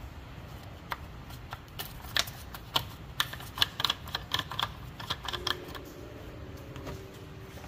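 A plastic coolant reservoir cap being unscrewed by a gloved hand: a quick run of sharp plastic clicks and ratcheting, then a faint steady tone as the cap comes off.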